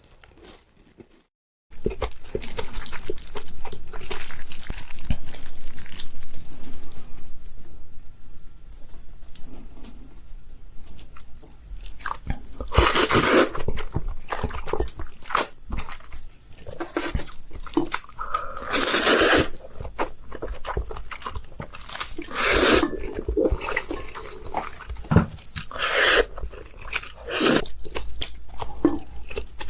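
Close-miked eating sounds: crunchy bites and chewing of chicken and Samyang spicy cheese noodles. They start after a brief near-silent moment, and in the second half the loudest bites come in separate bursts every few seconds.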